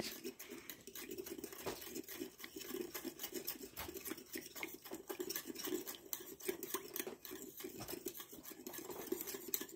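A metal spoon stirring baking soda and water in a small stainless steel bowl, making a quick, continuous run of small clicks and scrapes against the bowl.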